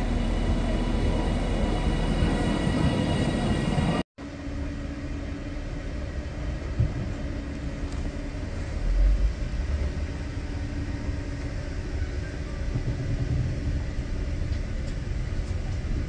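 A passenger train pulling into a platform: a dense rumble with several steady high whining tones. After a cut about four seconds in, an Avanti West Coast Class 390 Pendolino electric train running past on the track alongside, with a steady low rumble and a faint hum.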